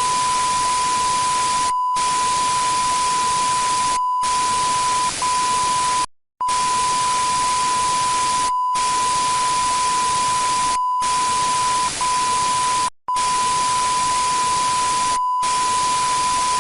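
A steady electronic beep at about 1 kHz over loud white-noise static, like a test signal on a dead TV channel. Both cut out in short silent gaps about every two seconds.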